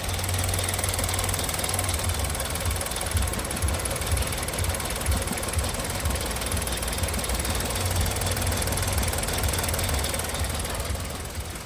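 Hyundai i20 engine idling rough and uneven, with an irregular low pulsing and stumble: the sign of a cylinder misfire.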